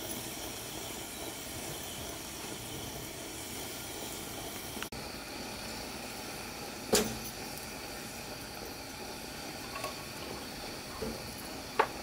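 Petromax pressurized kerosene lantern burning with a steady hiss. Two sharp knocks cut through it, one about halfway through and one near the end.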